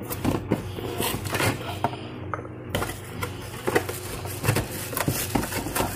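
A plastic Tupperware kitchen slicer being handled, with irregular clicks and light knocks, over a low steady hum.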